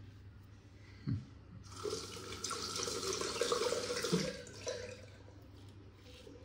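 Water running from a tap into a sink for about two and a half seconds, starting nearly two seconds in. A single thump comes just before it.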